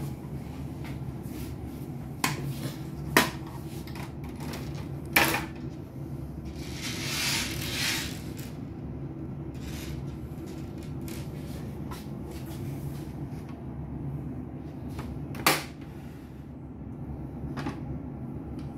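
Hard plastic and metal printer parts of an HP LaserJet Pro M501 being handled by hand: a few sharp clicks and knocks, loudest about three and five seconds in, with another near the end, and a scraping rustle lasting about a second and a half around seven seconds in. A steady low hum runs underneath.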